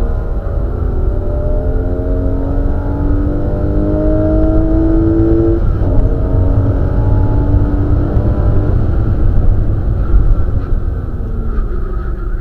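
Porsche Boxster race car's flat-six engine heard from inside the cabin, revving up hard under acceleration, with a short break for a gear change about halfway through, then pulling up again and dropping in pitch near the end as it comes off the power. A heavy deep rumble of road and wind noise runs underneath.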